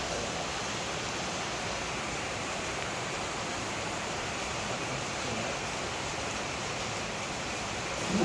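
A steady, even hiss that does not change in level.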